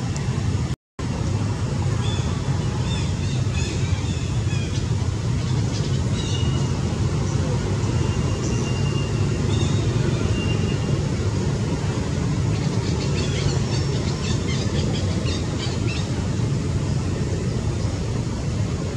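Steady low rumble of road traffic, with faint high-pitched chirps and short squeaks coming and going over it.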